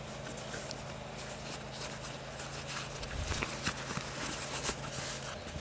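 Soft rustling and small irregular clicks of deer leather being hand-sewn with a needle and thread, over a steady low hum.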